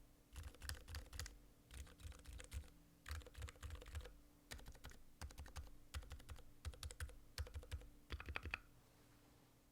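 Typing on a Satisfaction75 custom mechanical keyboard with lubed, filmed MX Zilent silent tactile switches: a quick run of soft, damped keystrokes in short bursts. The typing stops about a second before the end.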